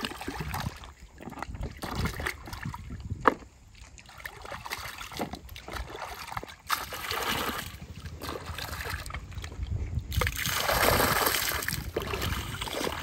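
Irregular splashing and sloshing of river water as carrots are washed by hand in a plastic basin dipped in a shallow stream. Near the end comes a longer, louder rush of water as the basin is lifted.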